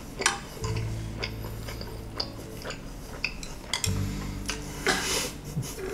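Wooden chopsticks clicking and scraping against a frying pan as food is picked from it: a scattered series of sharp clicks.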